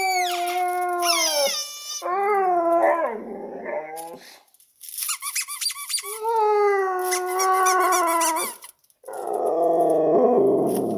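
A husky vocalizing at a squeaking noise: long drawn-out howl-like calls and wavering, growly 'talking' sounds. High-pitched squeaks come in between the calls.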